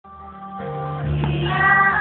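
A small group of women singing through microphones over instrumental accompaniment; held accompaniment notes open, and the voices come in about one and a half seconds in.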